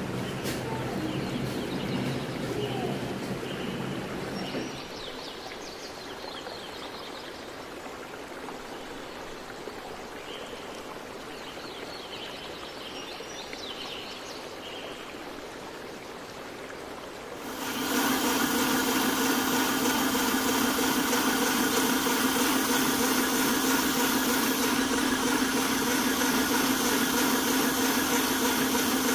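Electric mixer whipping cream in a metal bowl. It starts about two-thirds of the way in and runs steadily with an even motor whine, louder than the quiet background noise before it.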